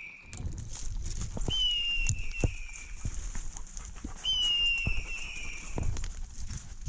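A hawk-scream call, a falling screech of about a second and a half, repeats twice at an even pace about three seconds apart; it comes from a pointing dog's beeper collar, whose point mode signals that the dog is holding point. Throughout, dry leaves crunch and twigs snap under footsteps pushing through brush.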